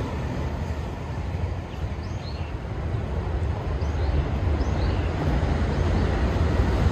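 Meitetsu electric trains running on an elevated track: a steady rumble that eases as one train moves away, then grows louder near the end as another train comes on.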